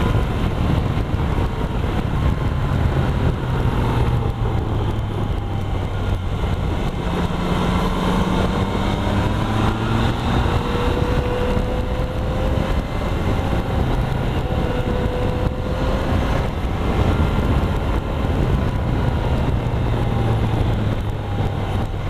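Motorcycle engine running at riding speed, its pitch rising and falling as the throttle changes through the bends, under a steady rush of wind and road noise on a helmet-mounted microphone.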